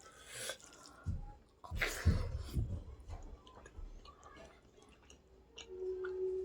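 Close-miked chewing and biting of food in a person's mouth, in several short spells, the loudest about two seconds in. A steady low hum starts near the end.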